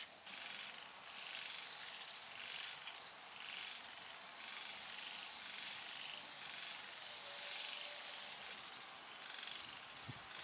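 Pork and bell pepper skewers sizzling on a small charcoal grill: a steady hiss that starts about a second in, gets louder twice and cuts off sharply near the end. Behind it a faint animal call repeats about every two-thirds of a second.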